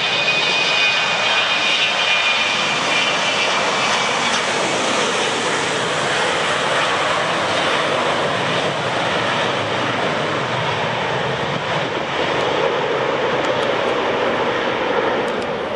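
Airbus A318 jet engines at takeoff thrust during the takeoff roll and lift-off: a loud, steady engine noise with a high whine over it in the first few seconds, the whine fading as the airliner moves away down the runway.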